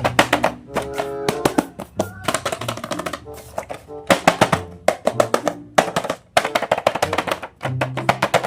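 Background music with held notes and a low bass line, under a rapid run of sharp clicks and taps.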